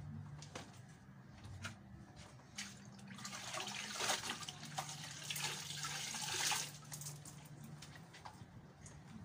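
Water splashing and dripping into a basin as a wet shirt is worked and wrung out by hand, lasting about three and a half seconds in the middle and stopping abruptly. Scattered light clicks come before and after.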